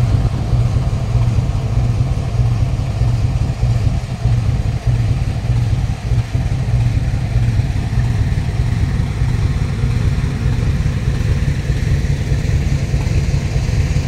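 WDG-4G diesel-electric locomotive's GE 12-cylinder engine running with a loud, steady low rumble as it hauls a loaded coal train past at close range, working under load with the dead WAG-12 electric in tow.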